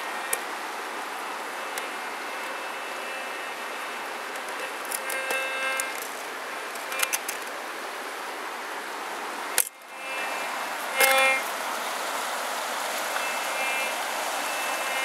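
White's Goldmaster GM3 metal detector giving several short target beeps as its search coil sweeps over bedrock, the loudest about two-thirds of the way through. The beeps sit over a steady rush of river water, and there is a sharp knock a little past the middle.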